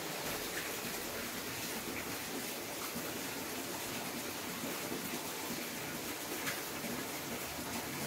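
Steady rain falling, a continuous even hiss, with a few faint ticks scattered through it.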